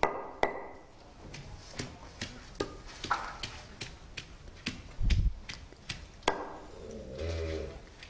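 A pestle knocking irregularly on a stone grinding slab as leaves, garlic and onion are pounded into a paste, with one heavier, deeper thump about five seconds in.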